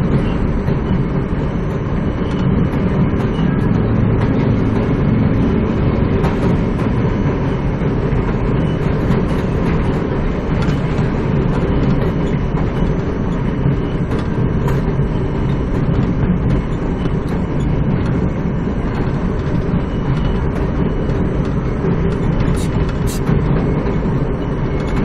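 R42 subway train running along the track, heard from inside the front car: a steady, loud noise of wheels on rails and traction motors, heaviest in the low end.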